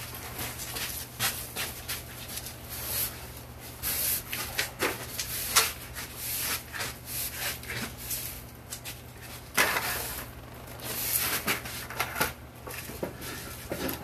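A broom sweeping the wooden deck boards in a run of irregular brushing strokes.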